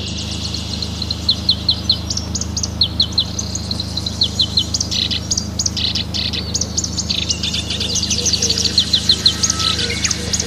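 Songbirds chirping and singing, many quick high notes in short runs of three or four, over a steady low hum.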